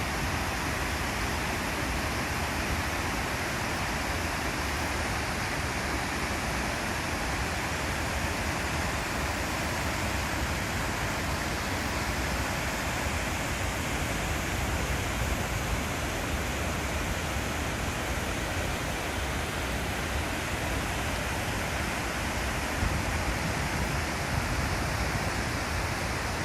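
Water pouring over a check dam in steady monsoon flow, an even, continuous rushing.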